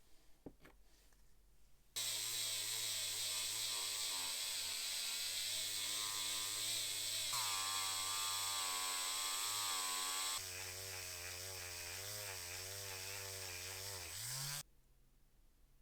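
A small electric power tool runs steadily, with a wavering whine. It starts suddenly about two seconds in, turns somewhat quieter about two-thirds of the way through, and cuts off near the end.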